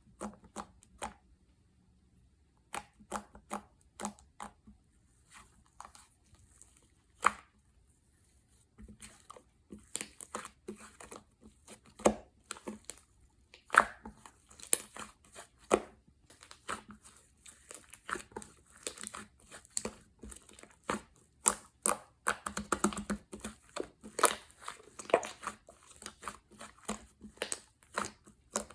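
Slime being squished, stretched and pressed by hand, giving irregular sticky clicks and small popping sounds. They come sparsely at first, then thick and fast from about a third of the way in.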